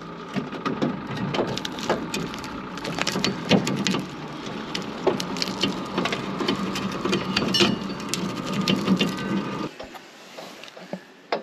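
Logosol bandsaw mill running through a log while its PreCutter debarker head scrapes ahead of the blade, crunching through bark and stones pressed into the log. A steady hum carries dense crackling and snapping, and all of it stops suddenly near the end.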